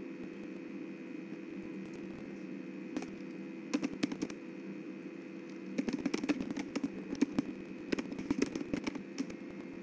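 Computer keyboard and mouse clicking: a few clicks about four seconds in, then a dense, irregular run of typing from about six to nine seconds, over a steady electrical hum.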